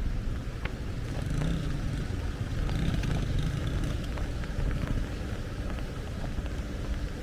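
Heavy rain falling, with a steady low rumble beneath it and scattered sharp drips landing close by.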